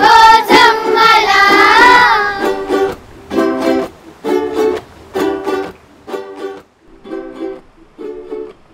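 Background music: a singing voice over strummed chords. About two and a half seconds in the voice stops, and short strummed chords repeat, growing quieter toward the end.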